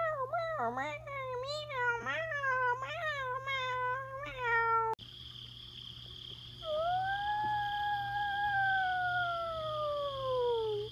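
A cat meowing again and again, about two short calls a second. Then, after a sudden cut, one long drawn-out cat yowl that rises and then slowly sinks in pitch over about four seconds, over a steady high ringing tone.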